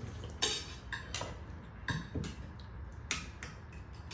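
Eating utensils clicking against plates and bowls: about five sharp, irregular clicks over a low, steady room hum.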